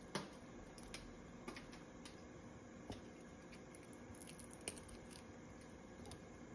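Green-winged macaw biting and cracking a nut held in its foot: scattered sharp clicks and crunches of beak on shell, the loudest just after the start.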